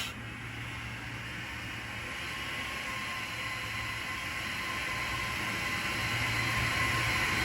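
Electric blower pushed into a dryer vent duct, running steadily with a rushing air noise that slowly grows louder, just after a louder burst cuts off sharply.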